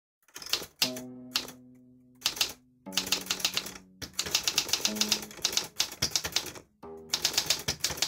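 Hangeul typewriter keys striking in quick, irregular bursts of clacks as Korean text is typed, over background music with a few long held low notes.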